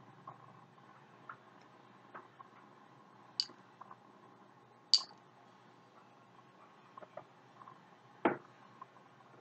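Scattered light clicks and taps of small medicine bottles and a carton being handled. Two sharp high clicks come a few seconds in, and a duller, louder knock near the end as something is set down.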